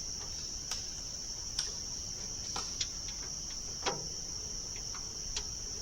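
Steady high-pitched chirring of crickets, with scattered light clicks and knocks at irregular intervals, the sharpest about four seconds in.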